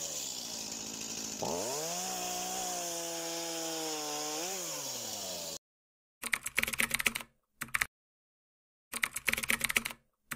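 Two-stroke chainsaw engine running, then opened up to high revs about a second and a half in, held there with a brief rise and dip near the end, before it cuts off suddenly. Afterwards come short bursts of rapid keyboard-typing clicks, a text-animation sound effect.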